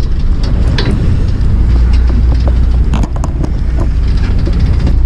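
Steady low rumble of a fishing boat's idling engine, with wind buffeting the microphone. A few small clicks of fishing tackle being handled come about three seconds in.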